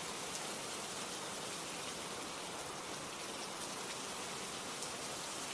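Steady rain falling, an even hiss of drops with no other sound standing out.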